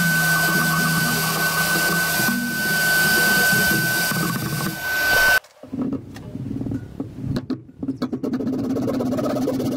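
Workshop vacuum running with a steady high whistle as its hose sucks up sawdust, cutting off suddenly about five seconds in. Then a handsaw cuts a wooden board held in a bench vise, in uneven back-and-forth strokes.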